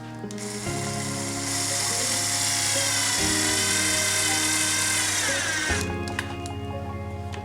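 Power drill running for about five seconds, its whine gliding down in pitch as it stops, over background music.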